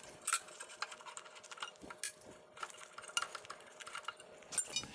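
Scattered light metallic clicks and clinks of an Allen key working the small screws in the bottom of a sliding table's metal stop foot.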